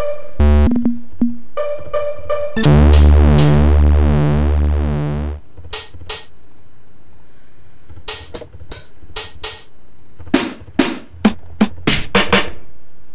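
Preset sounds from an E-mu Orbit 3 sample-playback plugin played from the keys. A few short pitched synth notes lead into a long, loud synth chord that pulses in the bass for about three seconds. Then, in the last few seconds, comes a run of sharp drum-machine hits.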